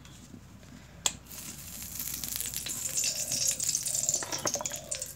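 Cooking oil going into a hot kadai and starting to sizzle and crackle, growing louder as it heats. There is a single sharp click about a second in.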